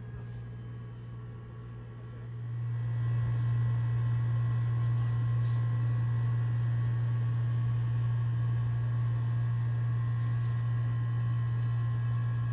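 A steady low hum that swells about two and a half seconds in and then holds steady, with a faint higher whine over it.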